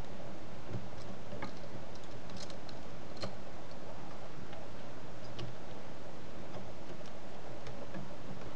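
Faint, scattered light ticks and clicks of a precision screwdriver turning tiny screws into a laptop LCD panel's thin metal side bracket, over a steady hiss.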